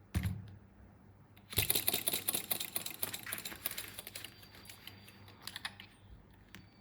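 Rapid clicking and rattling from a small toy mechanism being handled. A single click comes first, then a dense run of quick clicks starts about a second and a half in and tails off, with a few scattered clicks near the end.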